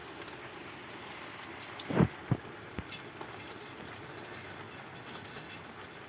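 Light summer rain falling: a steady, even hiss of rain on surfaces. About two seconds in, two loud short thuds stand out above it, followed by a fainter tap.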